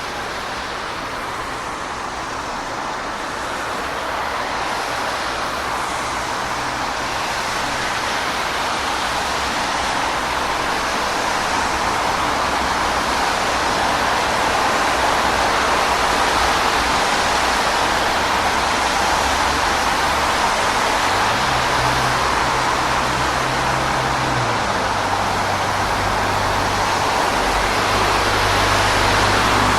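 Steady road traffic: a continuous wash of tyre and engine noise that grows louder over the first half. From about twenty seconds in, a low engine hum from a passing heavy vehicle comes in.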